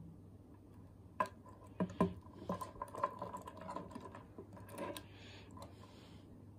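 Light clicks and knocks of a necklace of carved ivory beads and silver-mounted pendants being moved and set down on a wooden table, most of them bunched in the first half.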